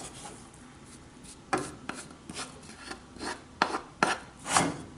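A kitchen utensil scraping and stirring a thick chicken mixture in a pan, in a run of short, irregular scrapes that start about a second and a half in.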